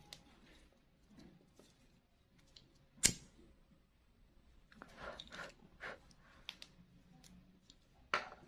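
Quiet handling noises of crochet work and small tools: soft rustles and faint clicks, with one sharp click about three seconds in.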